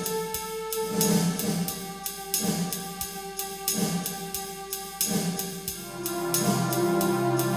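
Instrumental background music with a steady drum beat, about two hits a second, under sustained notes; a deeper bass part comes in about six seconds in and the music gets louder.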